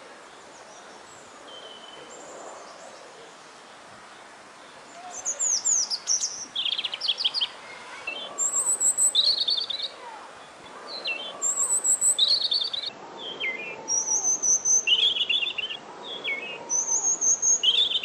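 European robin singing: a string of short, high, varied warbling and trilling phrases with brief pauses between them, starting about five seconds in. Before that, only faint birdsong is heard.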